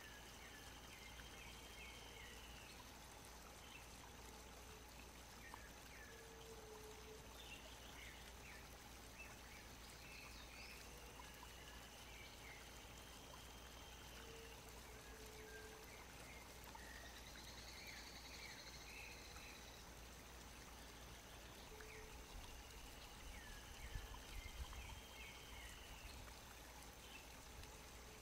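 Faint nature ambience: a soft, even water-like hiss with faint high chirping calls that recur about every ten seconds. A few soft knocks come near the end.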